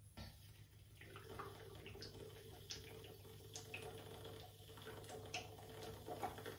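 A person drinking water in long gulps from a gallon plastic water jug: faint swallowing and sloshing, with a small click or gulp about once a second.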